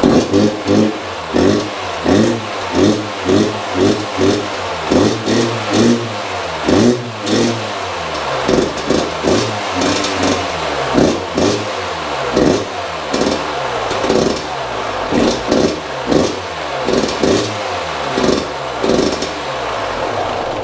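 Yamaha YZ125 single-cylinder two-stroke dirt bike engine running on its first start after reassembly and a fresh exhaust repack, revved in short throttle blips about once a second between a ragged idle.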